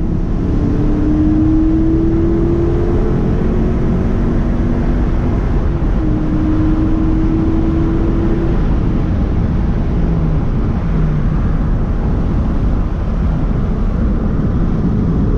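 Car engine and exhaust pulling hard under acceleration, loud and steady. The engine note climbs slowly, then drops back and climbs again about six seconds in.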